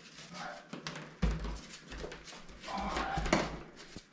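Dull thumps and scuffing of someone stepping onto a shower tray and working at its drain, with a heavy low thud about a second in.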